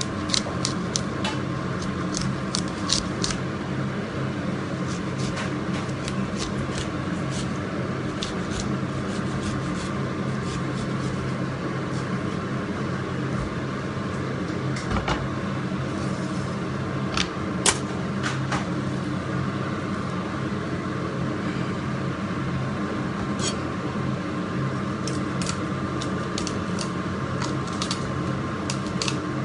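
Steady hum of kitchen machinery, with scattered sharp clicks and taps, in clusters, of a knife working over a large salmon.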